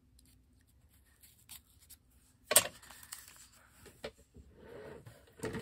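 Handling sounds of a tightly sealed paper envelope being worked at to open it: a sharp knock about two and a half seconds in, a few light clicks, and a short paper rustle near the end.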